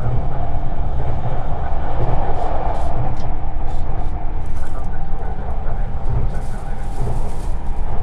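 Running noise of a 651-series electric train heard inside the passenger cabin: a steady rumble of wheels on rail, with a few brief faint high hisses partway through and near the end.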